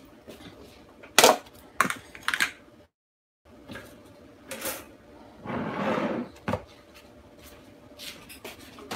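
Kitchen handling sounds: a few sharp clicks and knocks of a plastic butter tub and other kitchen things being picked up, opened and set down on the counter, with a brief scraping sound about six seconds in and a few more light clicks near the end.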